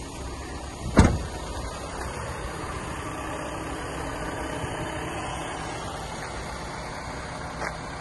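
The VW Crafter van's driver door slamming shut about a second in, one loud knock. Steady background noise follows, with a smaller knock near the end.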